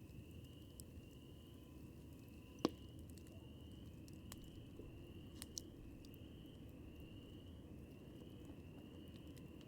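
Wood campfire crackling: a low, steady hiss of burning with scattered sharp pops, the sharpest a little under three seconds in and a quick pair a little past five seconds.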